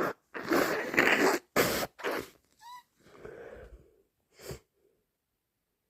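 A person with a bad cold sneezing and blowing their nose: several loud, wet, noisy bursts in the first half, a brief rising squeak near the middle, and one short burst about 4.5 s in.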